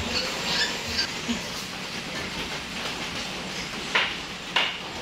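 Newborn piglets squeaking: a few faint, high squeaks in the first second, then two short, sharp squeals about four seconds in.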